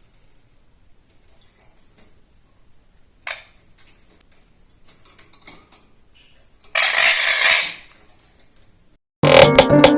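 Scattered light clicks and taps, then a loud, harsh, noisy sound about a second long around seven seconds in. Electronic music cuts in suddenly near the end.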